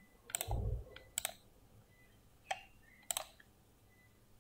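Computer mouse clicking a few times at irregular intervals, with a soft low thud about half a second in.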